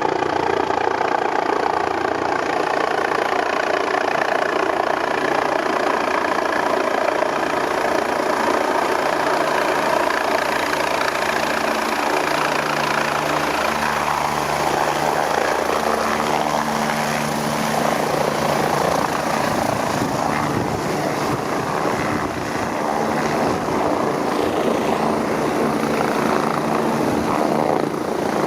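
MBB Bo 105 helicopter running loud and steady, its turbine engines and rotor making a continuous whine and blade thrum.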